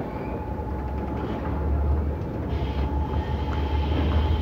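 Passenger train coaches rolling slowly out of a station, heard from an open coach door: a steady low rumble of wheels on track with a thin steady whine above it. The rumble grows a little louder about two seconds in as the train pulls away.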